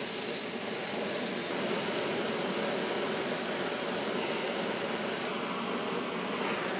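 Oxy-fuel torch flame hissing steadily as it heats a steel brake line to silver-solder a spot where the line had rubbed. The hiss turns sharper and brighter from about a second and a half in until about five seconds.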